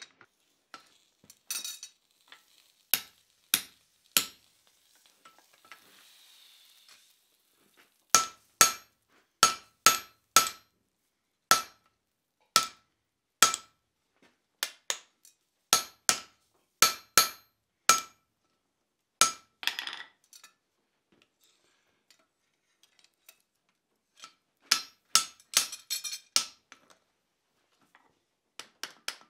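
Hand hammer striking red-hot steel on an anvil: a series of sharp blows, mostly about one a second, each with a short metallic ring. The blows pause twice and come quicker near the end.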